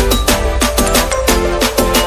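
Background music with a quick, steady beat and a melodic line.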